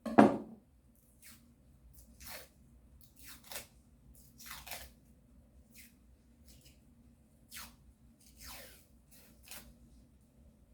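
A sharp knock about a second in, then a string of short, irregular crunching and scraping sounds of food or kitchenware being handled.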